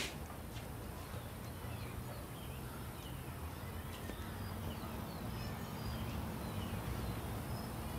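Outdoor ambience: a steady low rumble with faint, scattered bird chirps, and one short click right at the start.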